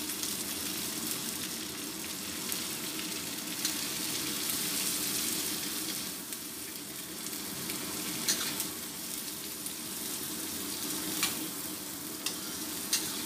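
Green beans, carrot and mushrooms sizzling in a stainless steel wok as a metal spatula stirs them, with a few sharp clinks of the spatula against the wok.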